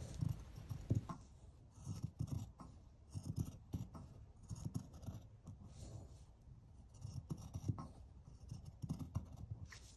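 Dressmaking shears snipping through four-way stretch knit fabric, a faint run of short, irregular cuts about once or twice a second as they trim close to a sewn glove seam.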